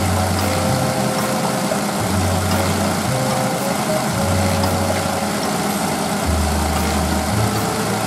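Daihatsu Tanto L375S's three-cylinder kei-car engine idling steadily while refrigerant is charged into its air-conditioning system.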